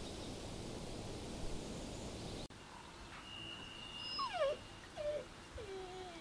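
Steady rushing background noise that cuts off abruptly about two and a half seconds in, followed by puppies whimpering: several short whines that fall in pitch, heard from about four seconds in.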